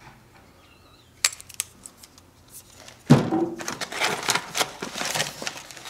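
Small hard objects handled by hand: a few sharp clicks a little over a second in, then from about three seconds in a busy run of clicking and rattling, like plastic and metal tool parts being fiddled with.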